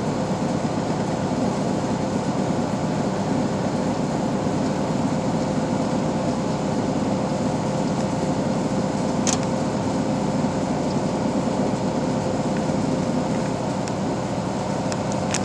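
Steady engine and tyre drone inside a truck's cab cruising at highway speed, with a constant hum running under it and a single brief click about nine seconds in.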